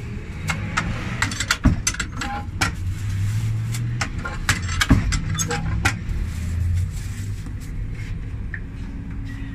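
Clicks, knocks and plastic crinkling from a metal tortilla press as masa is pressed flat between plastic sheets, with two heavier thumps, over a steady low mechanical rumble.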